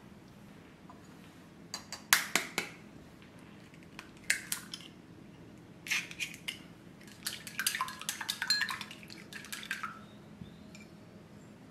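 A few sharp knocks and clinks on a ceramic bowl, then a fast run of clicking that lasts about two and a half seconds, as chopsticks strike the side of the bowl while an egg is beaten.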